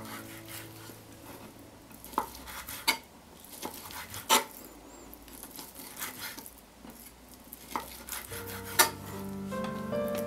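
Chef's knife chopping a raw white fish fillet on a wooden cutting board: irregular sharp knocks of the blade against the board, the loudest about four seconds in and near nine seconds. Background music with sustained notes comes in near the end.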